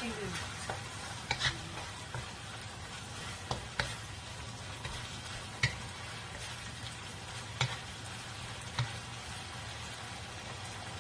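Baby octopus and onion sizzling in a nonstick wok while a wooden spatula stirs and scrapes them. Sharp knocks of the spatula against the pan come every second or two.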